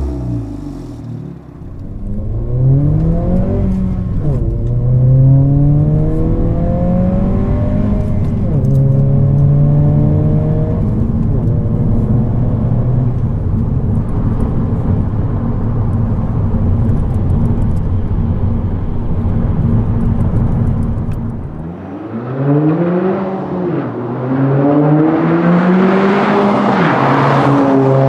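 Civic Si / Integra 1.5-litre turbocharged four-cylinder through an aFe POWER cat-back exhaust, revved up and down several times. It holds steady revs for a long stretch in the middle, then revs up and down again near the end.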